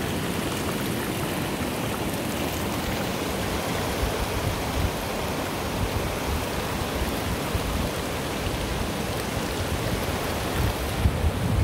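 Steady, even rush of heavy typhoon rain and running water. Low gusts of wind buffet the microphone in about the last second.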